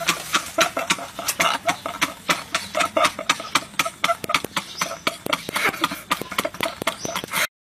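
Men laughing hard, a rapid run of short laugh bursts, several a second, that cuts off suddenly near the end.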